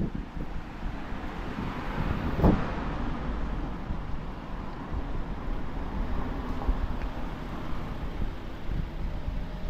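A car passes along the street, swelling to its loudest with a brief thump about two and a half seconds in, then fading into steady traffic noise.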